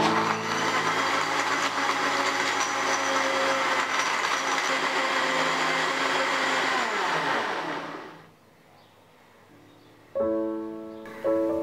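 Electric countertop blender running at full speed, whirring as it purées dragon fruit in liquid. About seven seconds in the motor is switched off and winds down with a falling pitch. Piano music comes in near the end.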